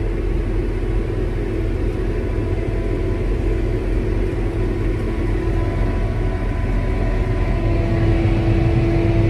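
Farm sprayer running as heard from inside its cab: a steady engine rumble with a constant hum. The hum grows stronger near the end.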